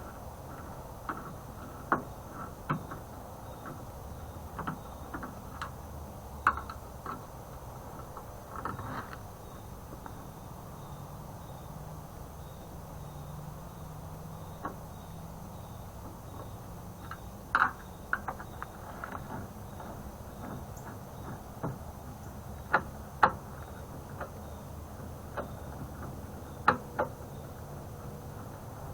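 Scattered light clicks and taps at irregular intervals, a screwdriver and loose screws against a microwave's sheet-metal case as the screws are taken out, over a steady low hum.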